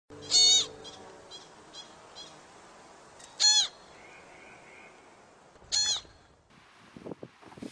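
American pika calling: three short, high calls about three seconds apart, with fainter calls after the first. Near the end, wind noise and a few low thumps come in.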